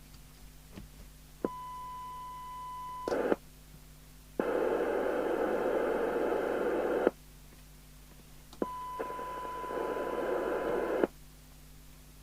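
FM CB radio receiver's squelch at threshold, opening and closing: a steady test tone comes through the speaker and cuts off, then about three seconds of loud receiver hiss with the squelch open, then the tone again with hiss building under it before the squelch shuts.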